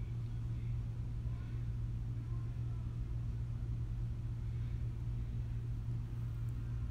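A steady low background hum with no distinct event.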